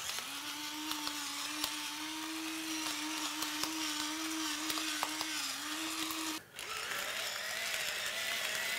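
Electric salt and pepper grinders running over a pan of carrots: one grinder's small motor whines steadily for about six seconds and stops, then a second, slightly lower-pitched grinder starts right after.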